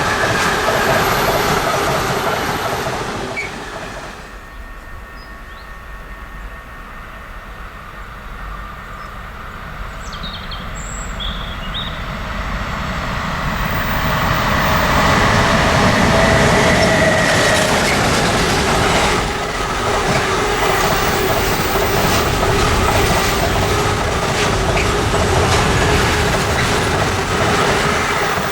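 Train running past on the track, with wheels clattering over the rails. The sound drops away sharply about four seconds in, then builds again as another train comes closer and passes loudly, with a steady run of wheel clicks and a thin squeal.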